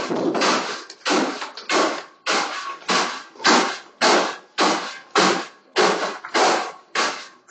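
Steady rhythmic scraping or brushing strokes, about two a second, each a short rush of noise that fades quickly.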